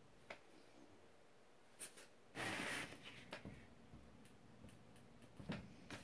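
Quiet room with a few soft clicks and one brief rustle about two and a half seconds in, as a hand moves over a large sheet of drawing paper.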